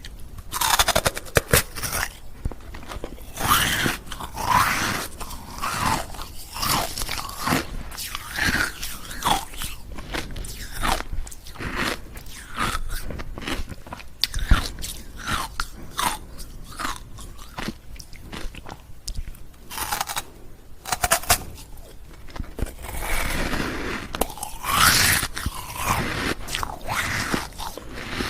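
Ice cubes being bitten and chewed close to the microphone: a run of loud, irregular crunches, one or two a second.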